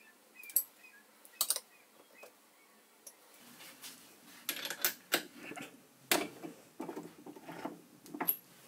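Light metallic clicks and knocks from hands working a three-jaw chuck on a small mill's dividing head, tightening and locking it in place. A few scattered clicks at first, then busier clicking and knocking from about halfway.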